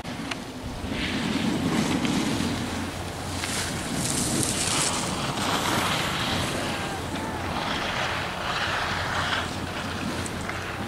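Wind rushing over the microphone in rising and falling swells over a low rumble, with the hiss of skis carving turns across packed snow.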